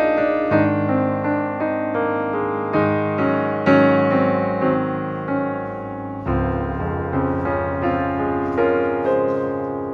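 Background piano music: a melody of struck notes, each ringing and fading, over low notes that change twice.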